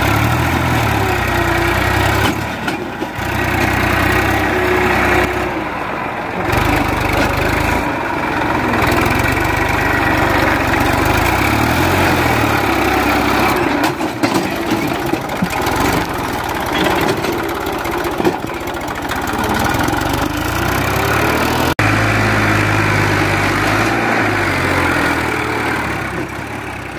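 Massey Ferguson tractor's diesel engine running under load, pulling a trailer fully loaded with sand. The engine speed rises and falls repeatedly, with an abrupt jump in the sound about 22 seconds in, and it fades out at the end.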